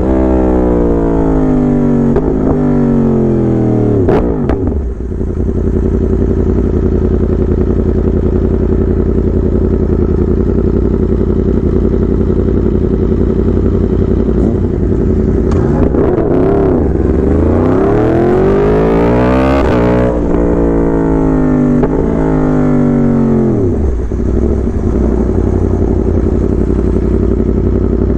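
Yamaha R1 inline-four sport bike engine with a loud exhaust. The revs fall away to a steady idle in the first few seconds. About two-thirds through it is revved up and let drop back to idle.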